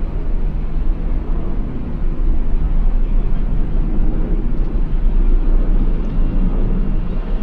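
Jet noise from a Sukhoi Su-35 fighter's turbofan engines during a flying display: a loud, steady, deep rumble.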